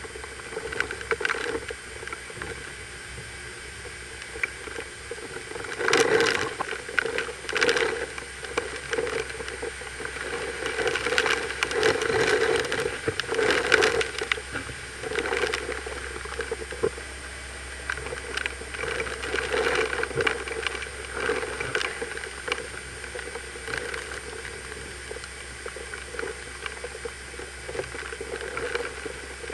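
Hurricane wind and driving rain: a steady roar of wind and rain with strong gusts surging about six seconds in, again around eleven to fourteen seconds, and once more near twenty seconds.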